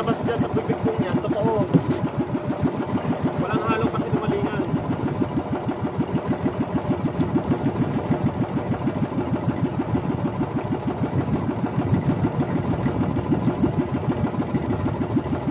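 Small boat engine of a motorized outrigger boat running steadily under way, a rapid, even putter.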